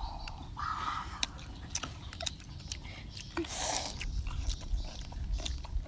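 Eating sounds: biting and chewing crisp raw cucumber and green papaya salad, with scattered short crunchy clicks and one louder bite about three and a half seconds in.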